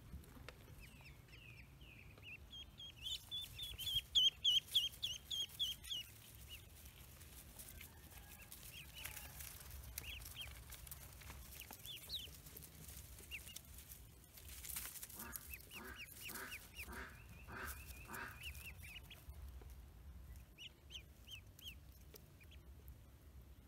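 Newly hatched Pekin ducklings peeping in a flurry of quick, high chirps, loudest early on, with scattered peeps later. About two-thirds of the way in, an adult duck gives a quick series of about seven quacks.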